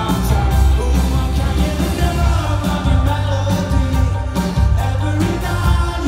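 Live rock band playing amplified: a male singer over electric guitar, bass and a steady drum beat.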